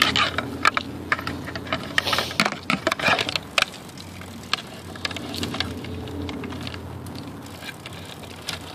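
Bicycle rattling and clicking as it rolls along a concrete path: a run of sharp rattles in the first few seconds, then a steadier rolling noise with only a few clicks.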